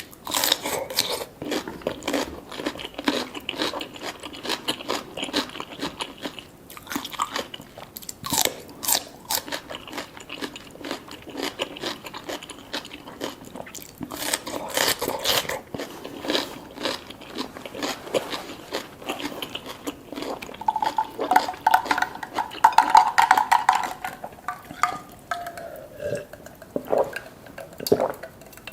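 Close-miked eating sounds from a seafood boil of lobster tail and sweet corn: steady biting and chewing with wet smacks and crackling clicks. About three-quarters of the way through comes the loudest part, a drawn-out pitched squeaky sound that slides down in pitch.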